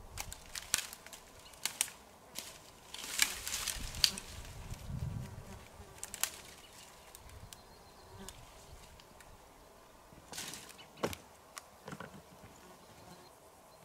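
A person moving about among grass and rocks and handling things on the ground: rustling and scattered sharp cracks and clicks. The densest cluster comes about three to four seconds in, and a few more cracks come near the end.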